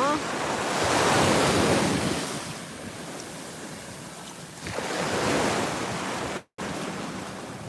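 Atlantic surf: waves breaking and washing up the beach in two swells, with wind buffeting the microphone. The sound cuts out for an instant about six and a half seconds in.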